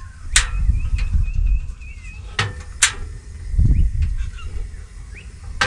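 Outdoor ambience: a steady low rumble with three sharp clicks and a dull thump, and faint high chirps of birds.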